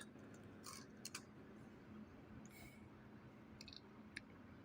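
A handful of faint, separate clicks from a laptop being operated, over near silence.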